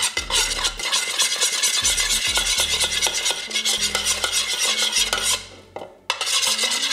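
A spoon stirring a liquid salad dressing in a large mixing bowl: fast, continuous scraping strokes against the bowl. It breaks off for about half a second some five seconds in, then starts again.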